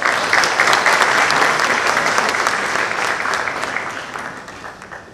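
Audience applauding, starting at once and holding steady, then fading away over the last couple of seconds.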